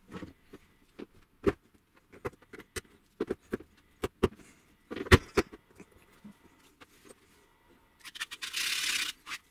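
Small metal linear bearings being pressed by hand into a 3D-printed plastic carriage: scattered clicks and knocks of metal against plastic, the loudest about halfway through, then a scrape lasting about a second near the end.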